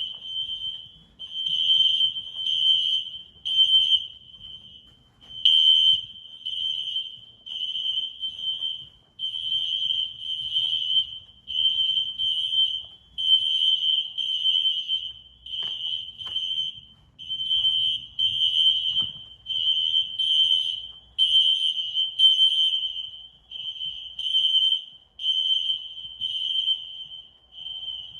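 System Sensor SpectrAlert Classic fire alarm horns sounding a building-wide alarm in loud, high-pitched horn blasts that repeat without letting up. The blasts fall at uneven spacing, which the tester puts down to one notification circuit (NAC) being out of sync with the other.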